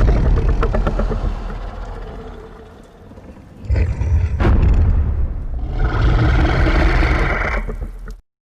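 Titanus Ghidorah monster sound effects. A heavy boom fades out over a few seconds, then a second deep rumbling impact with a sharp crack is followed by a long, high, strained roar. The sound cuts off abruptly near the end.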